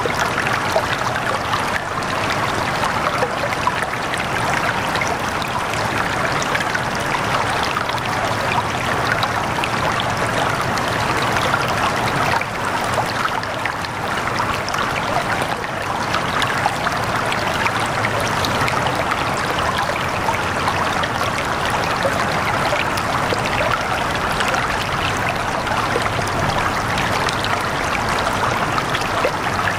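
Running water, streaming and trickling steadily without a break.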